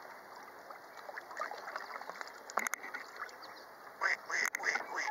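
Mallards calling close up: scattered short calls, then a quick run of five or six short quacking calls in the last second, over a low wash of lake water. A couple of sharp clicks, one in the middle and one among the final calls.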